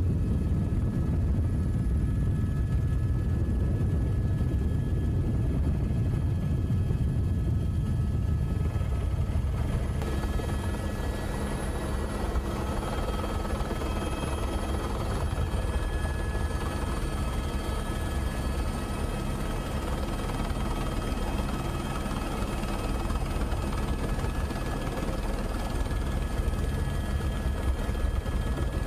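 Steady low rumble of a helicopter's rotor and engine heard from on board, its tone shifting slightly about ten seconds in.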